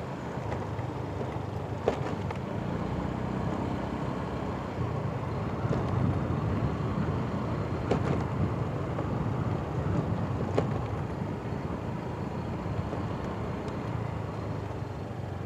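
Motorcycle engine running steadily while riding, with road and wind noise, and a few brief clicks.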